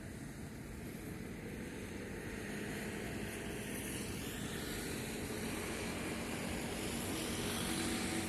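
Harbour ferry's engine running as the boat gets under way, growing gradually louder, with a steady low hum coming through in the second half.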